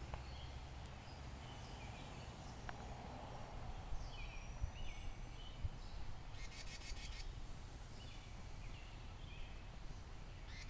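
Wren calling: a few short chirps, then a fast, harsh rattle about six seconds in, followed by more chirps. This is the scolding of an upset bird whose nest is being disturbed.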